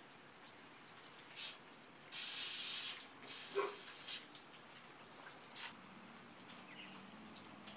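Aerosol can of Jasco paint and epoxy remover spraying in hissing bursts: a short burst about a second and a half in, a longer one of nearly a second, then a few shorter puffs. The stripper is being sprayed onto a steel bike frame to lift the old paint.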